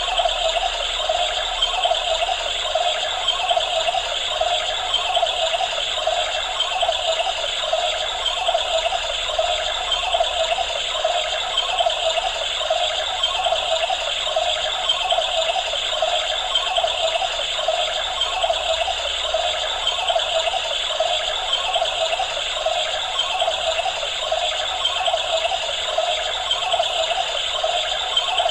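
Battery-powered toy washing machine running its spin, a small motor and plastic drum making a steady, fast rattle.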